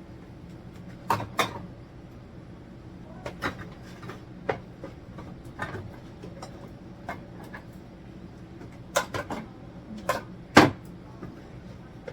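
Scattered knocks and clicks of household items and containers being handled and set down, with a cluster of knocks a few seconds before the end and the loudest just after, over a steady low hum.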